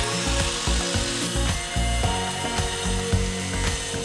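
Background music with sustained low notes that change every so often.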